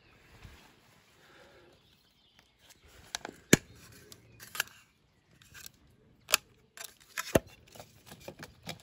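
A string of sharp plastic clicks from an outdoor weatherproof electrical enclosure being handled: its catches are unclipped and the hinged lid is swung open, with more clicks as the switch inside is fingered. The clicks start about three seconds in, and the loudest comes shortly after.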